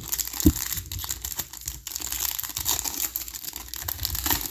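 Foil trading-card pack being torn open and crinkled in the hands, a dense crackling that goes on throughout, with a short low thump about half a second in.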